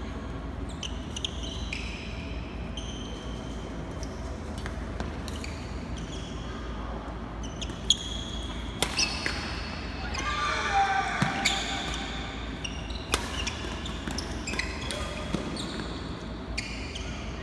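Badminton rally in a large hall: rackets smacking the shuttlecock in sharp cracks, with shoes squeaking in short high chirps as the players lunge on the court floor. The loudest hit comes about eight seconds in.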